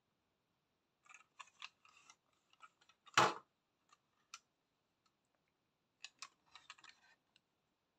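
Small plastic clicks and taps from a hand turning over a plastic model bus and its box. One louder sharp knock comes about three seconds in, and a second cluster of clicks comes near the end.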